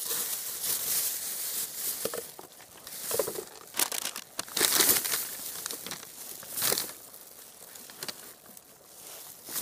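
Plastic bag crinkling and rustling in irregular bursts as rubbish is gathered into it.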